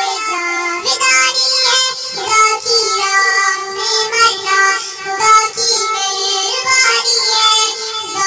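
A naat, an Islamic devotional song, sung by a high voice in long, gliding phrases, with little or no bass or instrumental backing.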